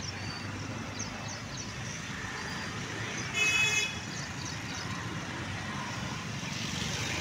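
Steady road traffic noise, with one short vehicle horn toot about halfway through.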